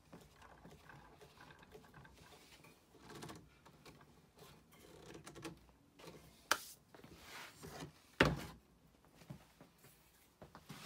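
Bar clamps being handled and tightened on a glued-up wooden block: quiet rubbing and scraping of the clamp screws and handles, with two sharp clacks, about six and a half and eight seconds in, the second the louder.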